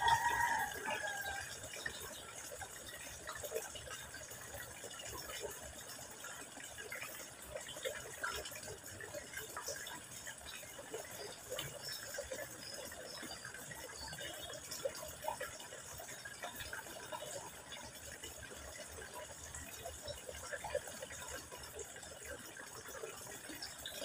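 Thin stream of water from a garden hose falling into a pond, splashing and trickling steadily. A short pitched call sounds right at the start.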